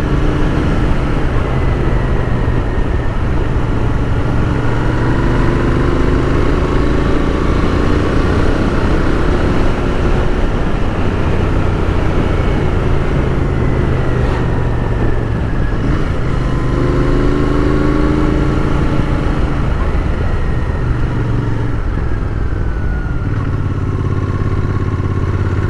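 Royal Enfield Continental GT 650's 648 cc parallel-twin engine pulling up a climb, its pitch rising and falling several times as the throttle and gears change.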